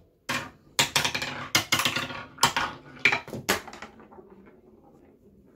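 Wooden ball clattering down a wooden zigzag ramp toy: a quick run of sharp knocks for about three seconds, then fainter rolling and rattling through plastic marble-run track.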